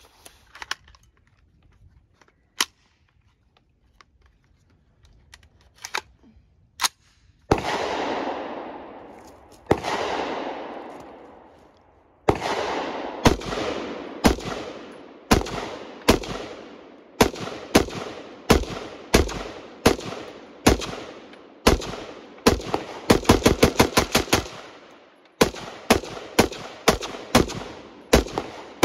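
Semi-automatic AR-style rifle on a 3D-printed PLA lower receiver being fired: a few clicks, then two single shots followed by a string of about thirty shots, mostly half a second to a second apart, with a fast run of about eight near the end. Each shot rings out with a long echo. The rifle keeps firing through the string without a stoppage.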